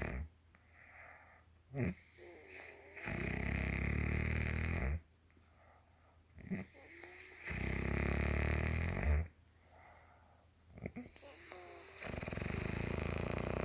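A woman snoring in her sleep: three long, low, buzzing snores, each about two seconds long and coming roughly every four and a half seconds, with quieter breathing between them, each gap marked by a brief sharp catch of breath.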